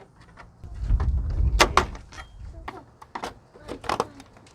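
Plastic grille clips and trim being pried and pulled free: a series of sharp clicks and snaps, with a low rumble of handling about a second in.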